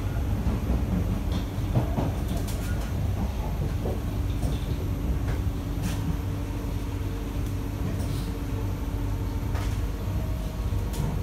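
Cabin noise of an SMRT C151B metro train running along the line: a steady low rumble with a constant hum, and a few sharp clicks from the wheels and car body.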